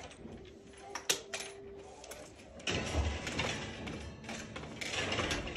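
Clicks and metallic rattling as a chain-hung wire-cage pendant lamp is handled. A sharp knock comes about a second in, and the rattling thickens near the three-second mark, where a low thump comes as a foot steps down onto a wooden step stool.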